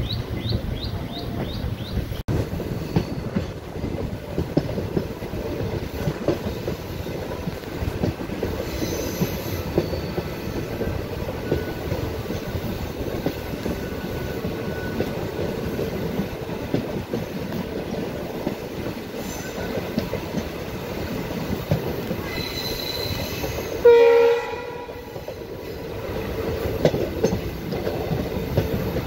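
Express train heard from on board, hauled by an ALCO WDG-3A diesel locomotive: steady running rumble with rapid wheel clicks on the rails and faint high wheel squeal on the ghat curves. About 24 seconds in, a short loud horn blast.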